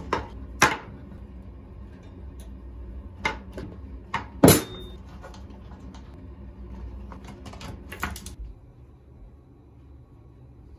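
Scattered clicks and taps of cotton swabs being picked up off a plastic bathroom floor and dropped back into their container, with one sharp knock about four and a half seconds in. The handling sounds stop about eight seconds in.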